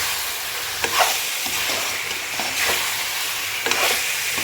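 Potato chunks frying in oil and spice paste in a pan, sizzling steadily, with a spatula stirring and scraping against the pan a few times.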